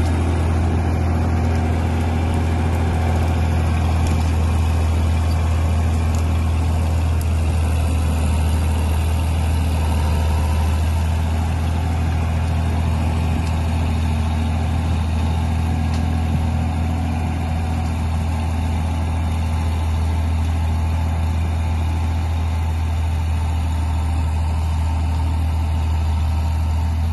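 Crawler tractor's diesel engine running at a steady speed while the bulldozer pushes soil and brush with its blade.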